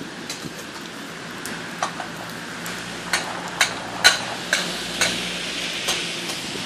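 Food sizzling on a public barbecue hotplate, a steady hiss, with a string of sharp clicks and taps from about two seconds in, loudest around the middle.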